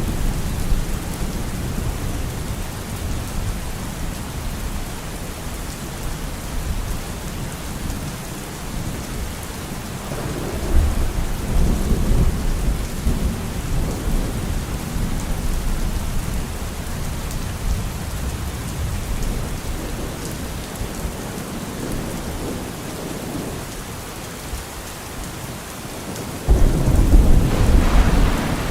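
Steady rain falling, with thunder rumbling through it: a rolling rumble swells about a third of the way in, and a sudden loud clap of thunder breaks near the end.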